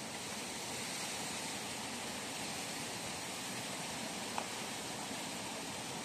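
Steady outdoor hiss with no pitch or rhythm, and one short click about four seconds in.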